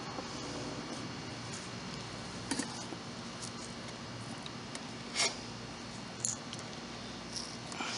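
A few light clicks and taps from work handling, the loudest about five seconds in, over a steady low background hum.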